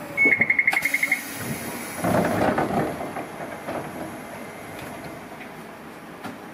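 Hiroshima Electric Railway 1900-series tram: an electric bell trills rapidly for about a second, then a short rush of noise about two seconds in, over the car's steady running noise.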